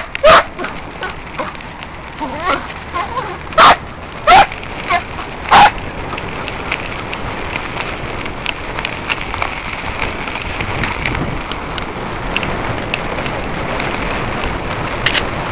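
A German shorthaired pointer barking: a handful of short, loud barks in the first six seconds. Then a steady rushing, crackling noise as the bike rolls along behind the pulling dog.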